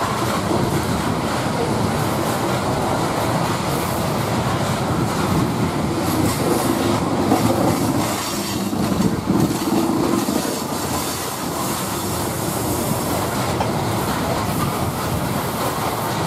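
Loaded coal hopper cars of a freight train rolling past, steel wheels running steadily on the rails.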